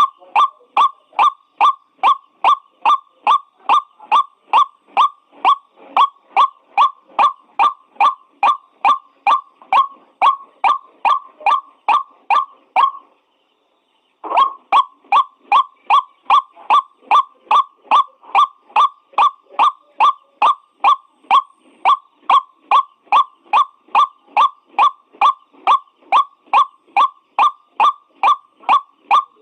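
White-breasted waterhen calling, a steady run of repeated harsh 'kruak' notes at about two a second. It breaks off for about a second partway through, then resumes at the same pace.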